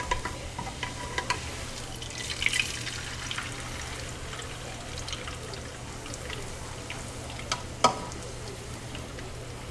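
Corn tortilla frying briefly in hot grease in a pan: a steady sizzle with a few sharp crackles, the loudest about eight seconds in.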